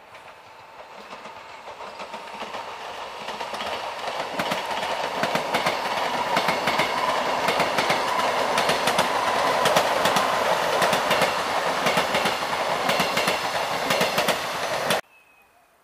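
Train running past with its wheels clicking on the rails, growing louder over several seconds as it comes close. The sound cuts off abruptly near the end.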